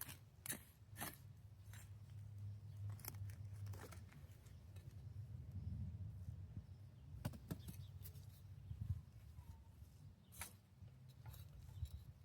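Faint scattered crunches, scrapes and small knocks of potatoes being dug out of loose soil and handled, over a low steady hum.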